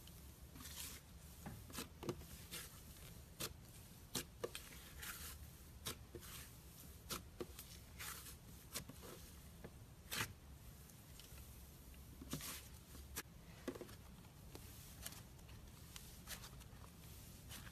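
Slime being squished and stretched by hand: scattered soft sticky clicks and small pops at an irregular pace.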